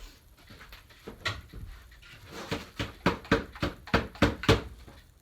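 Espresso machine filter holder being banged against a trash can to knock out the spent coffee grounds: a single knock, then a quick run of about eight knocks at roughly three a second.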